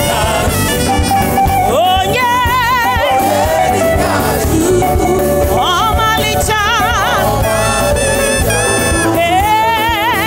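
Gospel worship music: a singer holds long, ornamented notes with a wide vibrato over continuous instrumental accompaniment.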